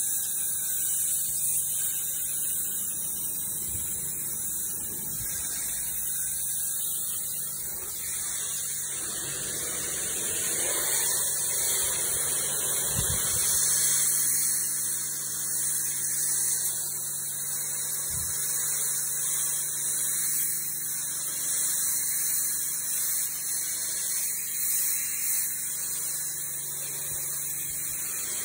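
Pressure washer jetting water onto stone paving: a steady high hiss of the spray hitting the stone, over a steady low hum from the machine.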